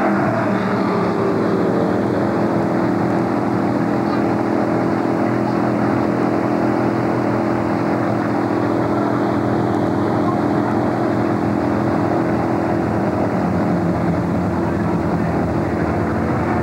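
Stock car's V8 engine idling steadily close by.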